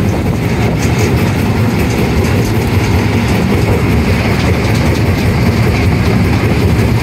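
Stationary rock crushing and screening plant running under load: the steady loud rumble and clatter of conveyors carrying crushed stone, vibrating screens and a cone crusher.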